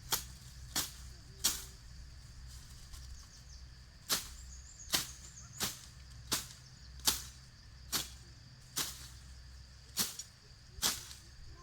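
A steady series of sharp strikes, about one every three quarters of a second, breaking off for a couple of seconds once early on before resuming at the same pace.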